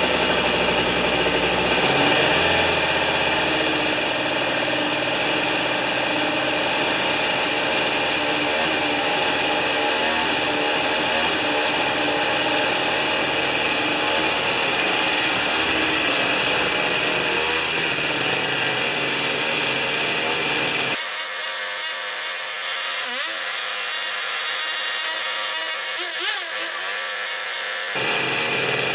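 Small Tecumseh two-stroke snow-thrower engine running steadily just after a cold start on choke and three primer pumps, catching readily the day after sitting. For several seconds near the end the sound turns thin, losing its low end.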